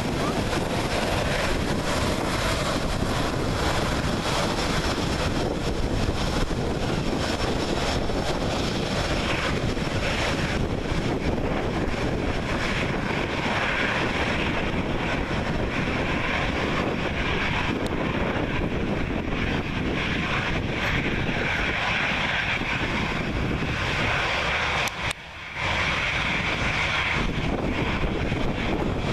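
Twin jet engines of an Austrian Airlines narrow-body airliner running at taxi power as it moves and turns on the runway: a steady rushing hiss with a whine that grows stronger as an engine swings toward the listener. The sound cuts out for a moment near the end.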